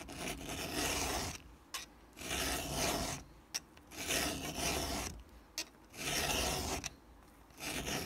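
Round chainsaw file rasping across a steel chain cutter tooth through a roller filing guide, about five steady strokes of about a second each with short pauses between, sharpening the chain tooth by tooth.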